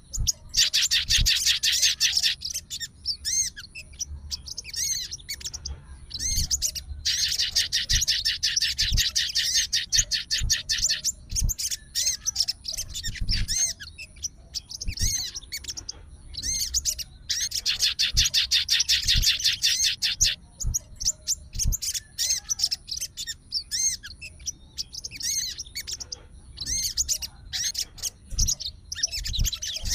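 Sogon songbird singing: three long, fast trills of about three seconds each, with scattered short chirps between them.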